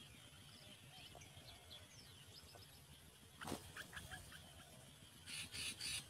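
Nestling birds begging: four short harsh calls in quick succession near the end as a parent bird feeds a chick. Before that, faint scattered chirps and a single sharp knock about halfway through.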